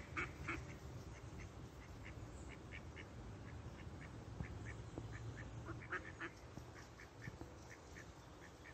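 Mallard ducks quacking: a steady run of short quacks a few tenths of a second apart, with louder bunches of quacks at the start and about six seconds in.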